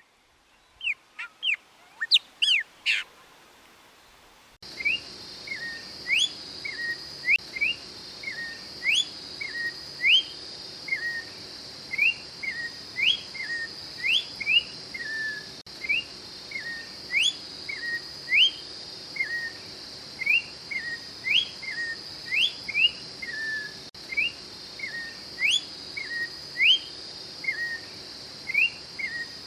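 Orange-backed troupial singing: a series of loud whistled notes, quick upward sweeps alternating with short lower falling notes, repeated about once or twice a second. From about four seconds in, a steady high-pitched drone sits underneath.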